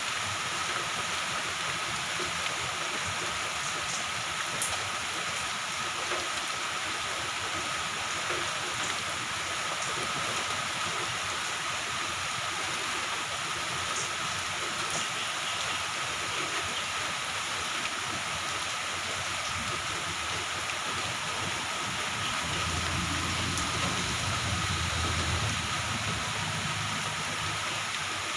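Moderate to heavy rain falling steadily, an even dense hiss. A low rumble swells for a few seconds near the end.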